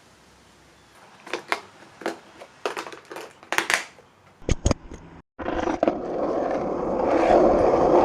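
Irregular clicks and scraping knocks of handling, with two sharper knocks about four and a half seconds in; after a sudden cut, a steady rushing noise of wind on the microphone that grows louder toward the end.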